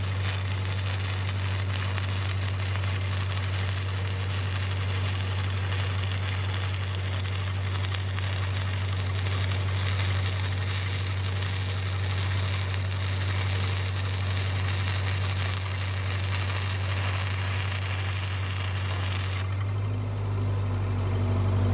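Stick-welding arc crackling and hissing steadily as a 5/32" E8010 rod burns, with a second rod fed into the puddle as filler to bridge a gap ('Texas TIG'). The arc cuts off suddenly near the end. A steady low hum runs underneath throughout.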